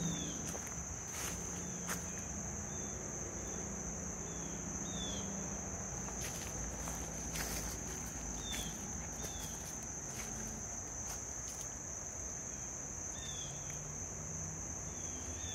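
Steady high-pitched chorus of late-summer insects, with a few short falling chirps over it. Occasional soft footsteps sound on leaf litter.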